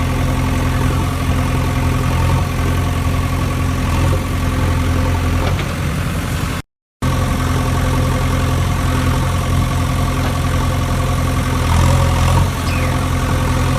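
Steady idling engine sound, low and even, cut off by a brief complete silence about halfway through before it resumes unchanged.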